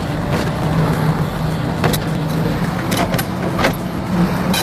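Excavator's diesel engine running steadily under load, with several sharp cracks and snaps as a stump harvester attachment tears into a stump.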